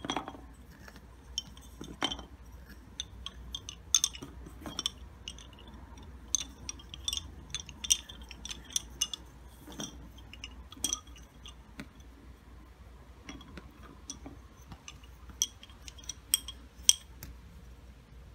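Wooden lace bobbins clicking and clacking against one another as they are handled and sorted, in irregular light clicks with a few sharper knocks.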